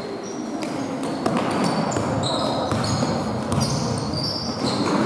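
Basketball game in a sports hall: many short high sneaker squeaks on the court floor and the knocks of a ball bouncing, over a steady hum of players' and spectators' voices.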